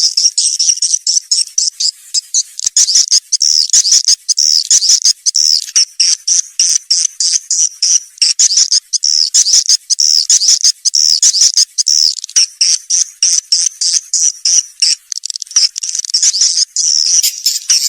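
Swiftlet twittering from a swiftlet-house lure recording: dense, rapid, high-pitched chirps with many calls overlapping and brief gaps between bursts.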